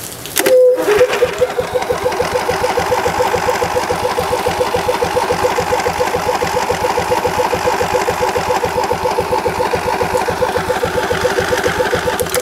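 Electric starter cranking a Briggs & Stratton Intek I/C 20 HP V-twin engine: a sharp clack as it engages about half a second in, then a steady, even rhythm of turning over that never catches, cut off suddenly at the end. The engine is not firing; the owner suspects it needs choke or is not getting fuel.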